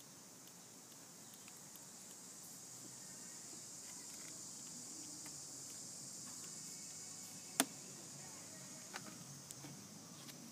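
Steady high-pitched insect drone, swelling a little midway, with one sharp click about seven and a half seconds in.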